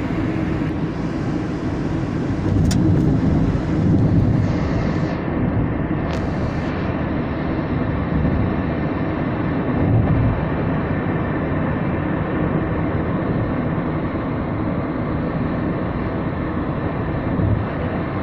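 Steady engine and road noise of a vehicle under way, with a brief click about two and a half seconds in.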